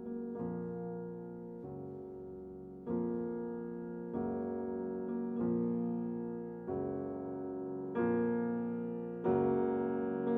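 Background music: slow piano chords, a new chord struck every second or so and left to fade.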